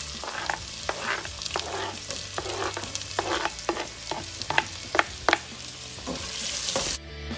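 Garlic, ginger and onion sizzling in oil in a frying pan while being stirred, a utensil scraping and tapping against the pan many times. These are the aromatics being sautéed until the onions turn translucent. The sizzling cuts off suddenly near the end.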